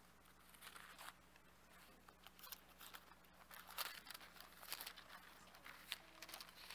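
Faint rustling of thin Bible pages being turned by hand, in soft scattered flicks, over a low steady hum.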